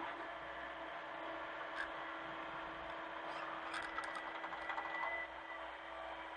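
Hitachi mini excavator's diesel engine running steadily, with scattered clicks and knocks between about two and five seconds in.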